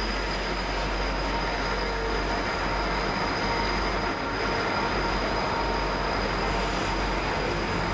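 Container wagons of a long diesel-hauled freight train rolling past on the rails: a steady, unbroken rumble and rattle of wheels and wagons.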